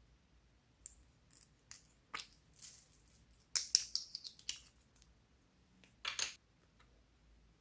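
Slime being worked by hand, giving a scattered run of short, crisp crackling squishes, thickest a little past the middle, with quiet gaps between.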